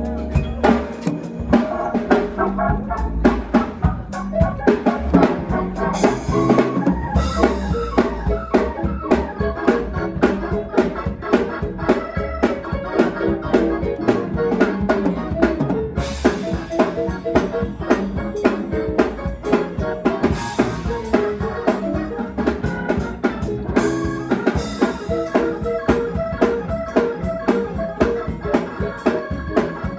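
Up-tempo church praise music: a drum kit plays a fast, driving beat under organ chords.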